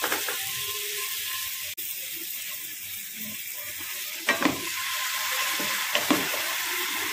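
Sliced onion and chopped garlic sizzling in hot refined vegetable oil in a frying pan. From about four seconds in, a wooden spatula stirs and scrapes them around the pan.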